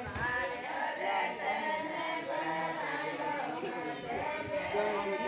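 Several voices singing together, a women's folk song (ladies' geet) in Hindi sung as a group, unaccompanied.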